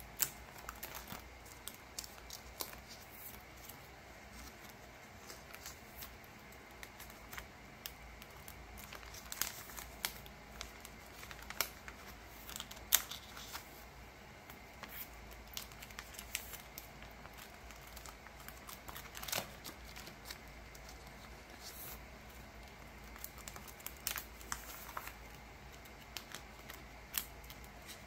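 Photocards being slid in and out of plastic binder sleeves: irregular crinkling and rustling of plastic with scattered small clicks, the sharpest about halfway through.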